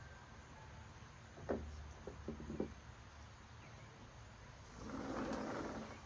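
Gusty wind: a steady low rumble of wind buffeting the microphone with a few light knocks, then a gust swelling up about five seconds in and easing off.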